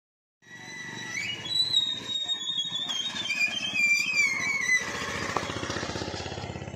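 Motorcycle engine running at idle, a steady low pulsing. For the first few seconds a high wavering squeal glides up and down over it.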